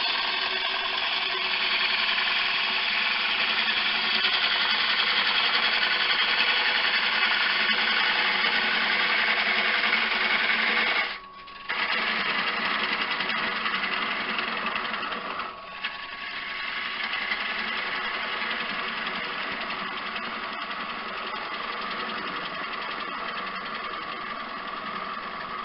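Wood lathe running with a turning tool cutting the spinning elm dish: a steady cutting noise that breaks off for a moment about eleven seconds in and dips briefly a few seconds later.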